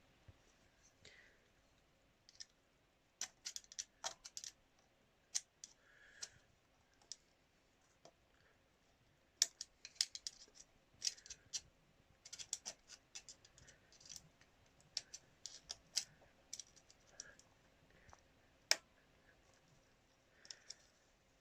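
Irregular clusters of sharp metallic clicks, taps and light scrapes: hand tools working a lever against a valve spring and its retainer to compress the spring.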